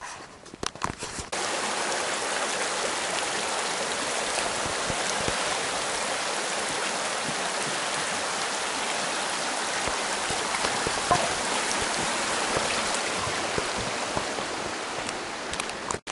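A shallow mountain creek running over rocks, a steady rushing that starts abruptly about a second in and cuts off suddenly near the end. Just before it, a few footsteps on the dirt trail.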